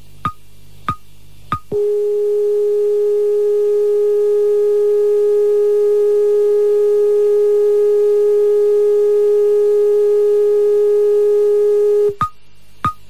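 Steady test tone of about 400 Hz with faint overtones, carried by Rai Radio2's 693 kHz AM medium-wave transmission after closedown and heard through a Panasonic SA-PM20 radio. The tone begins just under two seconds in and cuts off suddenly near the end. Before and after it come short high beeps, about one and a half a second, over a low mains-like hum.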